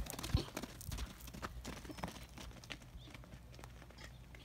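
Hoofbeats of two donkeys running: scattered knocks and clicks of hooves that grow fainter as the animals move away.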